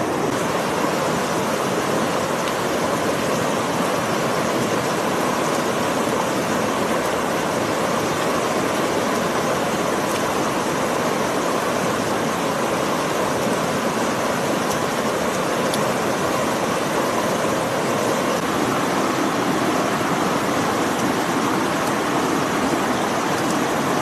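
Steady rushing of river water, an even noise that does not change.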